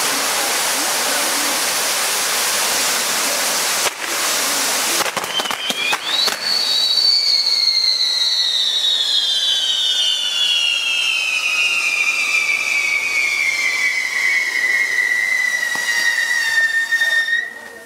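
Fireworks on a bamboo castillo tower: spinning pinwheels spraying sparks with a steady hiss, then a few crackles. About six seconds in, a whistling firework starts: one high whistle that falls slowly in pitch for about eleven seconds and cuts off suddenly near the end.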